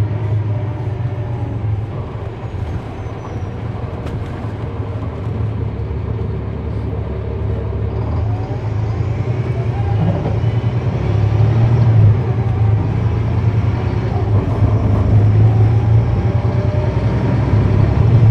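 A transit bus's Cummins ISL9 inline-six diesel, driving through a ZF Ecomat 6HP594 automatic transmission, running with a steady low drone. From about eight seconds in, the engine note climbs in pitch and grows louder.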